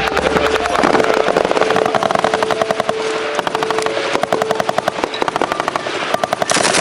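Machine gun firing long strings of rapid automatic shots.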